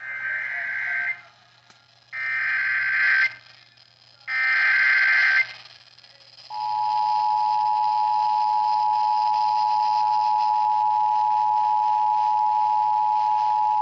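Emergency Alert System SAME header: three bursts of screeching data tones about a second long, a second apart, then about six and a half seconds in the steady two-tone EAS attention signal begins and holds. It announces a severe thunderstorm warning.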